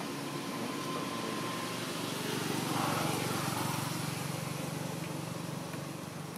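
Motor vehicle engine running steadily with a low hum and hiss, growing louder about three seconds in and then easing off.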